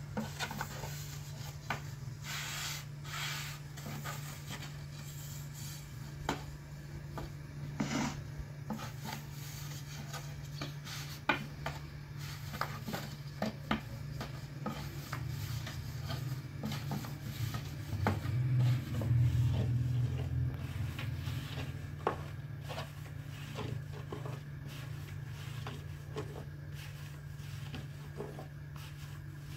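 Hands and utensils working bread dough: rubbing and scraping with scattered light knocks, over a steady low hum that swells for a few seconds past the middle.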